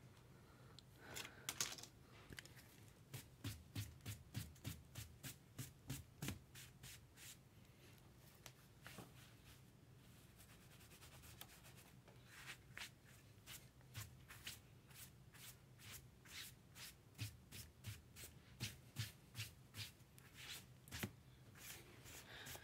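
Trading cards being handled and flipped through one at a time, a short slide or flick of card on card about two or three times a second, with a lull of a few seconds midway.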